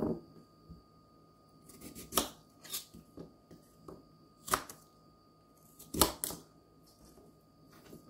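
Kitchen knife slicing a large raw carrot on a cutting board: several sharp knocks of the blade striking the board, spaced unevenly a second or so apart, as the crisp carrot is cut.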